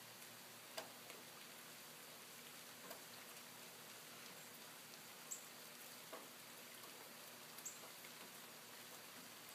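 Near silence in snowy woods: a faint steady hiss with a few scattered soft ticks and a couple of brief high chirps.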